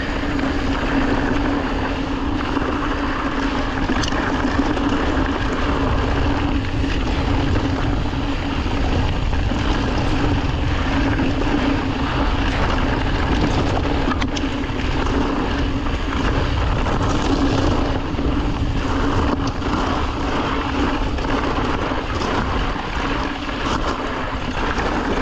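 Mountain bike rolling down a rough trail: a constant hum over tyre rumble and wind on the microphone, with scattered small knocks and rattles from the bike over the ground.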